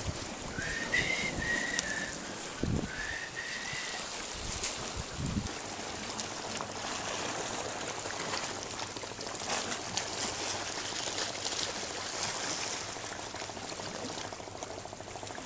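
Small waves lapping and washing against the rocks at the water's edge, a steady watery rush. In the first few seconds a few short high whistled notes sound, along with some low bumps.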